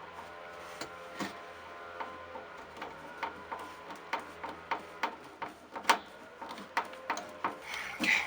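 Irregular clicks and light knocks of a tool and plastic parts being handled while fitting a Dodge Ram turn signal housing held by a single screw, over a faint steady hum. The knocks are uneven in strength, with one sharper knock about six seconds in.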